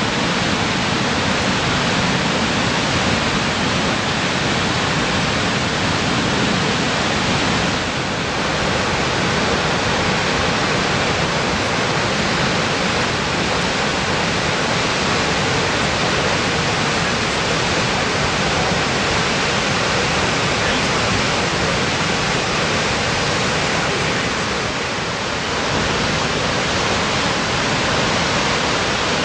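Vøringsfossen waterfall: the steady, loud rush of a large mass of water in a high free fall, an even noise without pauses. It dips slightly twice.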